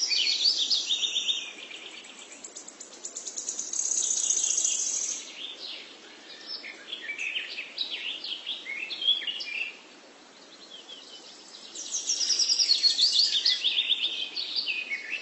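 Birds singing and chirping, with several stretches of rapid high trills and scattered short chirps in between.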